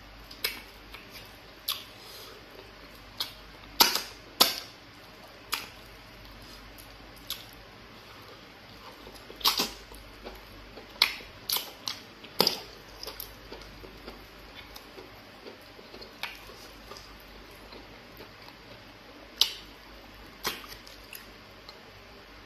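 Close-miked eating by hand: irregular wet smacks, clicks and chewing of a person eating fufu and egusi soup, fingers scooping the thick soup from the bowl and mouth working on each bite.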